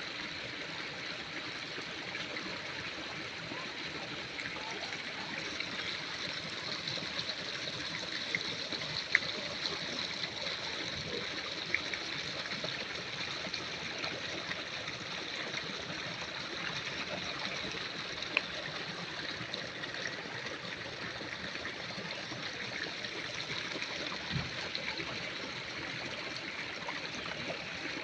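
Steady noise of running water, with a few single sharp clicks.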